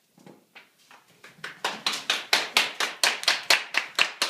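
Hand clapping at the end of a performance: a few faint scattered claps that build within about a second and a half into loud, steady clapping at about four to five claps a second.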